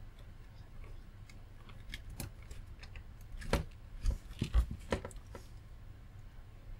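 Small hand tools clicking and tapping on a workbench during desoldering work, with a cluster of sharp clicks and knocks about three and a half to five seconds in, over a low steady hum.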